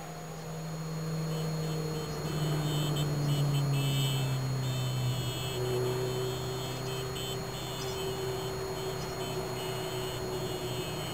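Motor vehicle engine running, growing louder about two seconds in, its note slowly falling and then holding steady.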